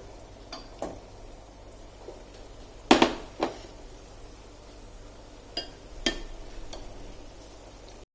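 Cooking utensil knocking and clinking against metal pots, about seven separate strikes, the loudest about three seconds in, as cooked chicken is added to the masala.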